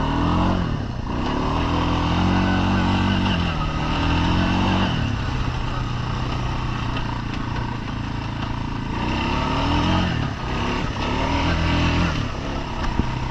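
Four-wheeler (ATV) engine being ridden, revving up and easing off several times: the pitch climbs about half a second in, falls back around five seconds in, and climbs again around nine seconds in.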